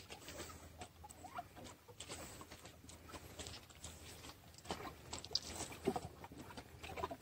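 Faint, irregular small clicks and ticks, scattered a few to the second, over a low steady hum.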